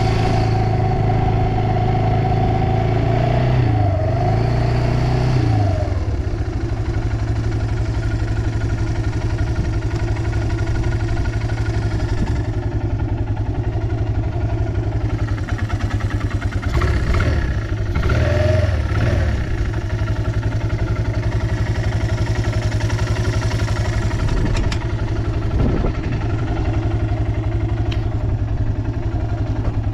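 Yamaha Breeze 125 ATV's four-stroke single-cylinder engine running. It is held at a slightly raised speed, drops back to a steady idle after a few seconds, and gets one brief throttle blip a little past the middle. It runs with no abnormal noises.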